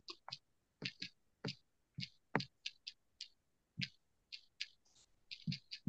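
Irregular light clicking and tapping at a computer desk: about fifteen separate clicks over several seconds, a few of them with a dull low knock.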